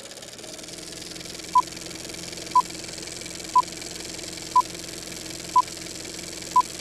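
Film-leader countdown sound effect: a steady film-projector whir with a short, high beep once a second, six beeps in all, the beeps being the loudest sound.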